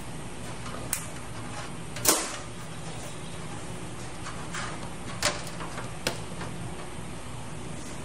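Sharp clicks and knocks of parts being handled against a metal PC case while a case fan is fitted: four of them, the loudest about two seconds in, over a steady low hum.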